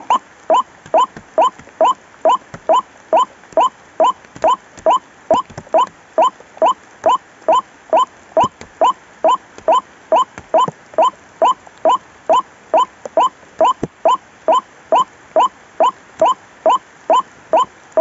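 White-breasted waterhen call: a short rising 'kwak' note repeated steadily about twice a second.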